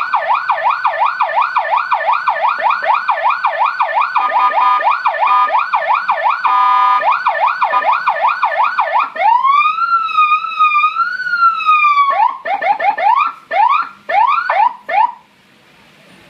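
Senken CJB 100-watt electronic police siren cycling through its tones. It starts with a fast yelp of about three sweeps a second, gives a brief steady horn blast, returns to the yelp, then slows into a long wail that rises and falls. It finishes with a few short whoops and stops about a second before the end.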